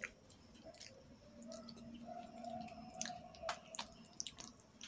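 Faint chewing and mouth noises of people eating a soft rice-flour, coconut and sugar sweet, with a few short sharp clicks.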